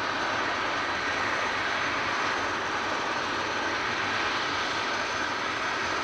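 BAE Hawk T1 jet trainer taxiing, its Adour turbofan engine at low power: a steady rushing whine with a thin high tone above it.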